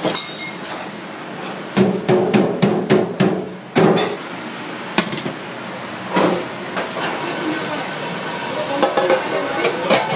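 A plastic basket banged about eight times in quick succession against the rim of a stainless steel pot, knocking bean sprouts out of it. Lighter metal clinks of a pot lid near the end.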